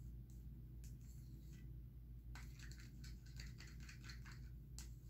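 Plastic stir stick scraping and clicking faintly against the sides of a small plastic cup while stirring acrylic tube paint into pouring medium, in short scattered strokes that come thickest from about two and a half to four seconds in. A low steady hum sits underneath.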